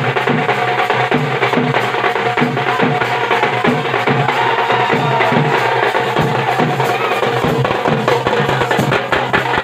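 Loud percussion-heavy music with a fast, steady drumbeat, played for a dancing crowd.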